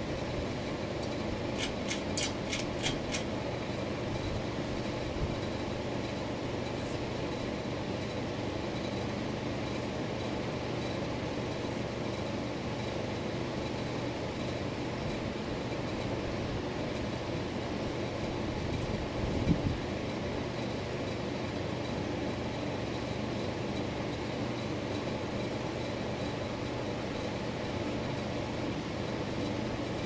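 Hugger four-blade ceiling fan running steadily, a motor hum under the whoosh of the blades. A quick run of light clicks between one and three seconds in as a hand handles the light fixture, and a single dull thump about twenty seconds in.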